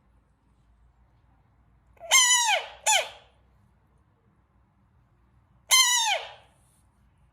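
Frogs giving loud defensive calls: three high cries, each sliding down in pitch. Two come in quick succession about two seconds in and one more near six seconds in.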